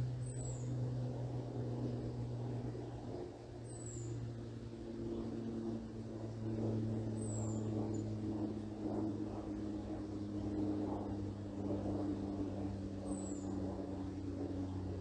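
Airplane droning overhead, a steady low hum whose pitch drifts slowly. A small bird gives a short, very high, falling call four times, a few seconds apart.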